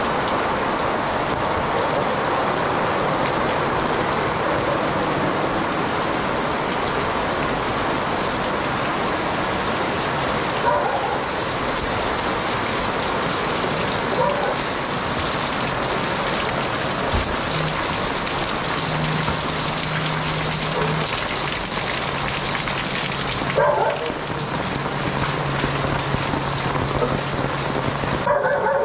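Torrential rain pouring steadily onto the pavement and roofs of a narrow alley. A few brief sharper sounds stand out, and a low steady hum joins in during the second half.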